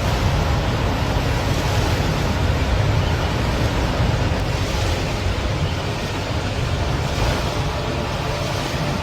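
Steady rush of a large volume of water pouring down the face of a skyscraper from a man-made rooftop waterfall, with wind on the microphone.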